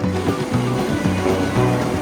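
Background music with steady sustained notes and a regular bass line.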